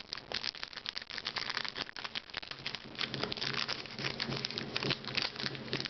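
Foil wrapper of a Pokémon booster pack crinkling and crackling as it is torn open and peeled back, a dense run of fine crackles throughout.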